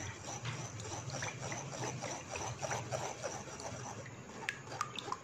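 Metal spoon stirring and pressing wet, ground jamun pulp against a stainless steel strainer, a soft squelching and scraping as the juice is worked through the mesh. Near the end come a few sharp clinks of the spoon against the strainer.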